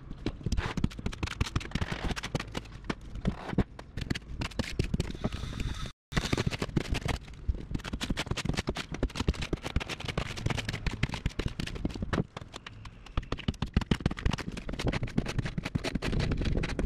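A long-handled tool jabbing and prying at the rotted marine plywood core of a boat transom: a rapid, uneven string of knocks, scrapes and splintering cracks of soft wood, breaking off briefly about six seconds in.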